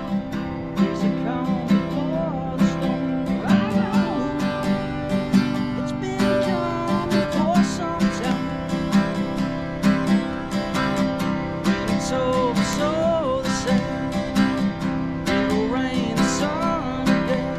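Background music: a strummed acoustic guitar with a steady rhythm, with a melody gliding over it.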